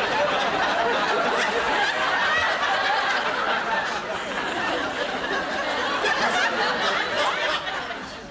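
Studio audience laughing steadily, fading toward the end.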